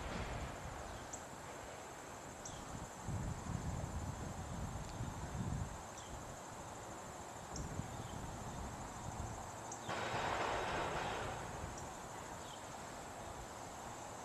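Insects trilling steadily at a high pitch, with short falling chirps repeating every second or so. Low rumbles come and go, and a louder rustling noise starts about ten seconds in.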